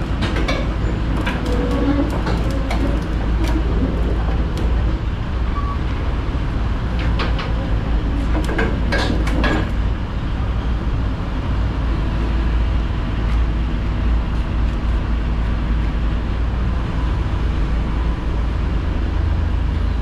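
Hyundai R300LC excavator's diesel engine running steadily under load as the boom and bucket swing, with clusters of sharp knocks in the first few seconds and again about eight to ten seconds in.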